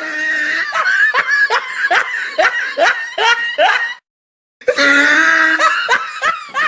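Laughing sound effect: a run of short 'ha' notes that each fall in pitch, about two to three a second. It cuts off about four seconds in and starts again after a brief gap, played a second time.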